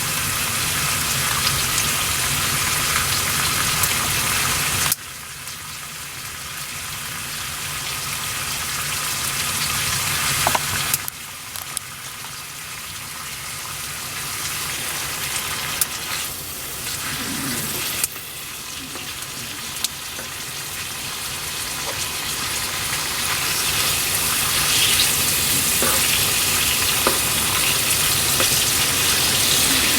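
Bacon and eggy bread frying in fat in a pan, a steady loud sizzle. The sizzle drops away suddenly three times and builds back up after each drop.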